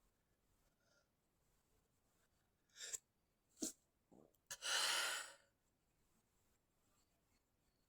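A person stifling a sneeze: two short, sharp catches of breath, then a louder breathy rush of air about four and a half seconds in.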